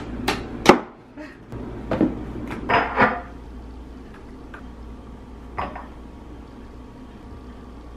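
Sharp clicks and knocks of a blue glass bottle and a plastic soap pump being handled and fitted together on a countertop. The knocks are loudest in the first second, with a few more around two and three seconds in and one near six seconds.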